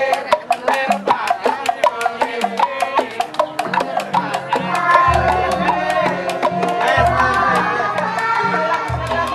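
Music with a fast, steady run of percussion clicks under a melodic line; from about five seconds in, deep bass notes sound roughly every two seconds.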